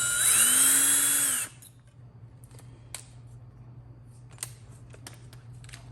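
Electric drill boring a pilot hole in the centre of a shower head's flow restrictor. Its motor whine speeds up and rises in pitch, then stops suddenly about a second and a half in. Faint small clicks of handling follow.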